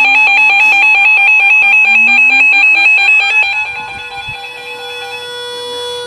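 Electronic emergency alert alarm warbling rapidly between two pitches. Under it a siren winds up in pitch, and about three and a half seconds in the warble stops and the siren holds a steady, quieter tone.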